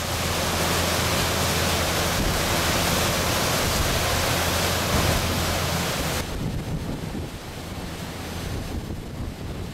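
Wind rushing over the microphone with water noise on a moving boat, and a steady low engine drone underneath. About six seconds in it drops abruptly to quieter wind and water.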